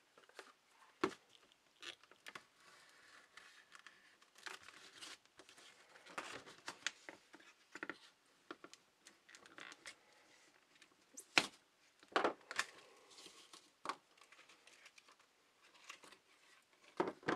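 Plastic blister packaging being pried and torn open by hand, crinkling and crackling with scattered sharp clicks and snaps.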